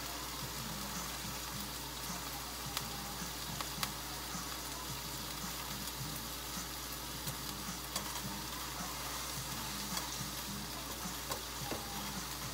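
Food frying in a pan on turned-down heat: a steady sizzle with a few small pops.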